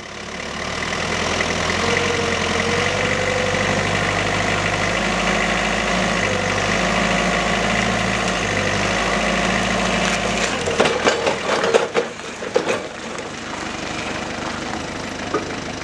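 Forklift engine running steadily under load. About ten seconds in its low note drops away, and a quick run of clanks and knocks follows.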